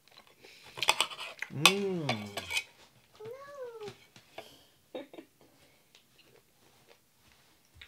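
Cutlery and dishes clinking at a meal, with a few sharp clicks scattered through. Two short wordless voice sounds rise and fall in pitch: the first is lower and louder, and the second is higher, like a small child's.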